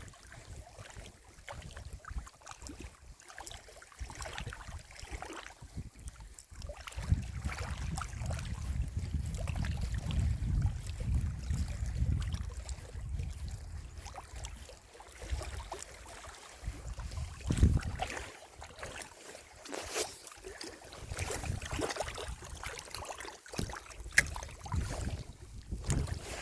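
Wind buffeting the microphone outdoors: an uneven low rumble that swells in a gust from about seven to thirteen seconds in, with a few sharp clicks or knocks later on.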